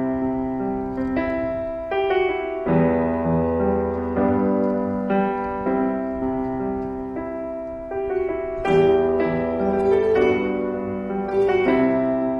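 Background piano music, its notes and chords changing about once a second.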